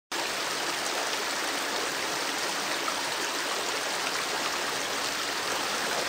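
Water rushing steadily over a dam spillway: an even, unbroken rush of falling water.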